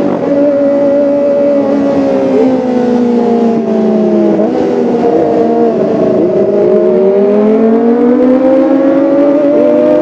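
Kawasaki ZX-25R's 250 cc inline-four engine and exhaust running at high revs. The engine note falls steadily for about four seconds, wavers, then climbs again toward the end.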